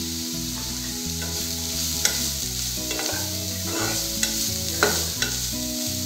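Metal spatula stirring and scraping a vegetable mix frying in a nonstick kadai, with the mix sizzling. The spatula strikes the pan several times with sharp clicks.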